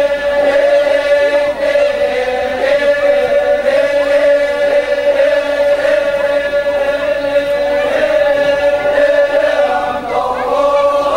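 A group of voices chanting together on one long-held note that wavers slightly, with a higher line joining near the end.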